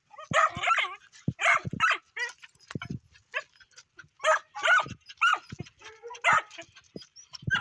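A series of about ten short, high animal cries, bending in pitch and coming every half second to a second, with low knocks between them.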